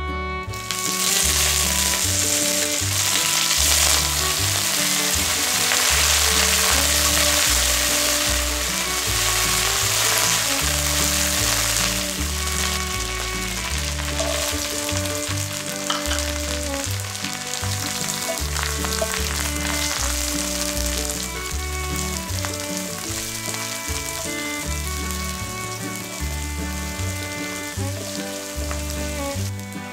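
Curry leaves dropped into hot coconut oil in a nonstick wok, sizzling hard, loudest in the first dozen seconds. The sizzle then eases as sliced shallots go in and are stirred. Background music with a steady bass pattern runs underneath.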